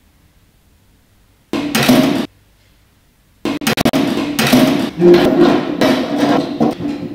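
Metal-framed chairs knocking and clattering against each other and the tables. A short burst comes about a second and a half in, then from about three and a half seconds on a fast, dense run of bangs that keeps going, ringing in the hall.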